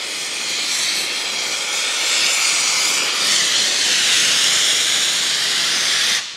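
Oxy-fuel (autogen) brazing torch flame hissing steadily, then stopping abruptly near the end.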